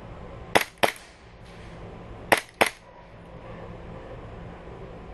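Airsoft pistol shots: four sharp cracks fired in two quick pairs, each pair about a quarter second apart, roughly two seconds between the pairs.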